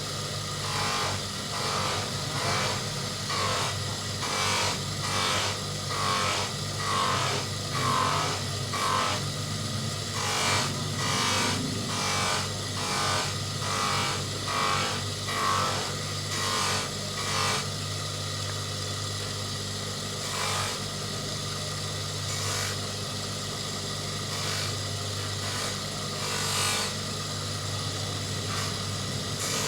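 Abrasive back-and-forth rubbing strokes, about one and a half a second, as the scratched acrylic crystal of a Casio watch is sanded and polished by hand, over a steady low hum. The strokes stop a little past halfway, and only a few single strokes follow.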